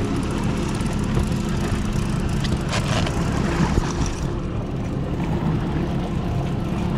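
Suzuki outboard motor idling, a steady low hum that does not change pitch, under wind and water noise.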